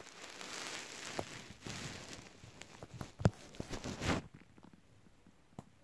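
Butter slime squished and worked between fingers close to the microphone: a run of soft sticky crackles and clicks, with a sharper pop about three seconds in. It stops abruptly about four seconds in, leaving only a few faint clicks.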